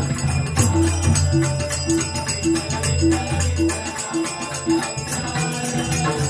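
Devotional bhajan music: taal (small brass hand cymbals) clash in a steady, fast rhythm over a low drum, with a short pitched note repeating about twice a second.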